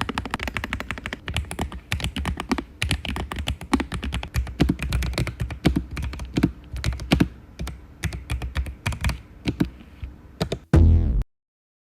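Fast typing on a Lofree Flow low-profile mechanical keyboard: a dense, uneven run of key clicks and bottom-outs. The typing stops with a brief loud low-pitched burst near the end, then silence.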